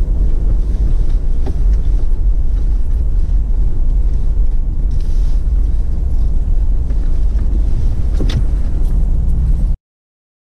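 Low, steady rumble of a 4th-generation Toyota 4Runner's V8 and drivetrain on a trail, with a couple of knocks, the sharpest one about eight seconds in. The sound cuts off abruptly just before the end.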